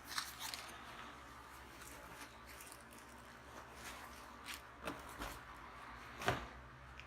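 Quiet handling noises from the tactical uniform and its packaging: faint rustling with a few short clicks and knocks, the loudest about six seconds in.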